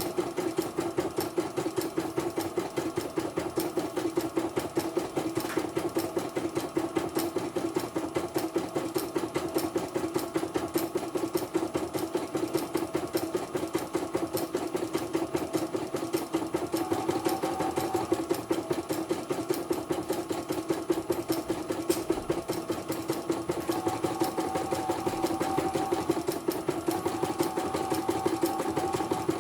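CNY portable computerized embroidery machine stitching a test design: the needle mechanism runs in a fast, even rhythm of stitches over a steady motor hum. A higher whine comes in briefly past the middle and again near the end. It is running smoothly after repair.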